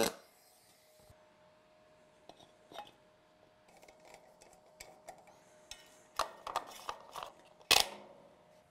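Light metallic clicks and knocks of a cut aluminum plate being handled and fitted against an aluminum truck frame, with one louder clack near the end. A pulse-MIG welder's buzz cuts off right at the start.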